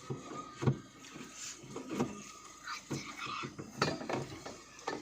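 Irregular knocks and thuds with rattling between them, five or so in all, the loudest just under a second in.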